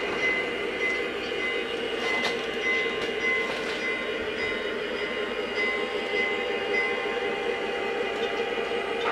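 Model diesel locomotive running on three-rail track with a steady mechanical hum of its motors and wheels.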